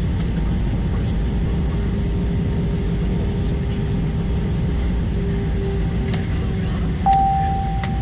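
Cabin noise of an Airbus A320 taxiing after landing: a steady low rumble of engines and airflow with a faint hum. About seven seconds in, a single-tone cabin chime sounds sharply and holds for about a second.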